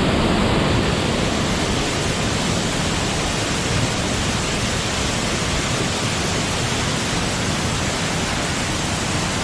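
Waterfall: water falling and crashing, a loud, steady rush.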